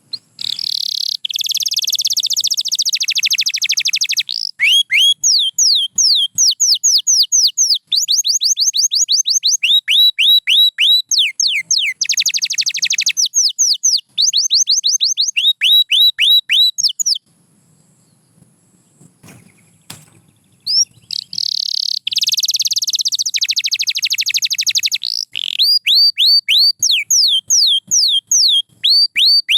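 Canary singing in long phrases of rapid trills and quick runs of falling notes. It stops for a few seconds past the middle, then starts again.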